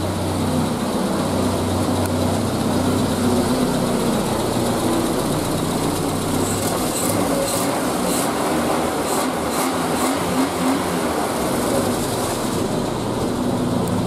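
Triumph Spitfire's four-cylinder engine running steadily, now firing on all four cylinders after a misfire on cylinder 2. It is still a little patchy with an occasional miss, which the owner puts down to fine-tuning of timing and mixture. A few light clicks come partway through.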